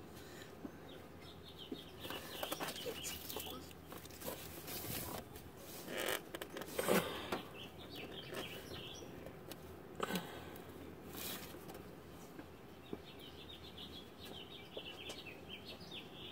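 A gloved hand working at a spin-on oil filter: knocks and scrapes against the filter and the hoses around it, the loudest about seven and ten seconds in, with runs of high squeaky chirps.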